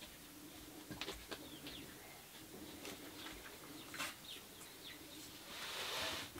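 Soft knocks of split firewood being stood upright in a small fire pit, with birds chirping around. Near the end a short hiss as a match is struck and flares.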